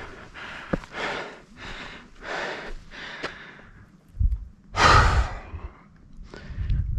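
A winded hiker breathing heavily after a long, steep climb, about one loud breath a second, the loudest near the middle. A low rumble of wind buffets the microphone under that loudest breath and again near the end.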